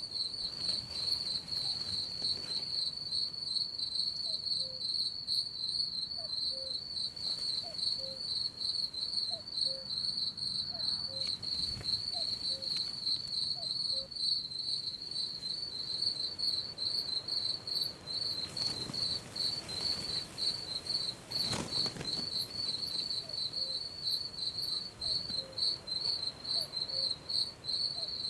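Crickets chirping steadily in a fast, even, high-pitched pulsing trill.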